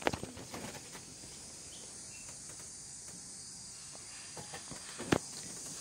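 Steady high-pitched chorus of insects, with a sharp knock near the start and another, louder one about five seconds in.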